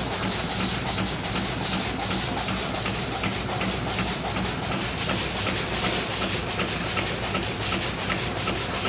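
The steamship Virginia V's triple-expansion steam engine running at about 150 revolutions a minute. A steady, rhythmic hiss of steam swells with each stroke, over regular mechanical clicking from the moving rods and cranks.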